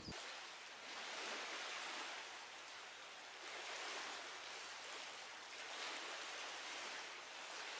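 Faint outdoor ambience: a soft, even hiss that swells and eases every couple of seconds.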